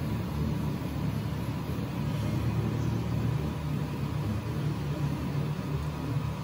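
Prusa i3 MK3S+ 3D printer's stepper motors running with a steady low hum while it calibrates the Z axis.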